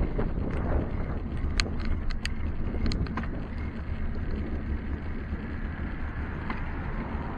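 Wind rumbling steadily on the microphone of a camera riding on a moving bicycle over a wet road, with several sharp clicks in the first three seconds.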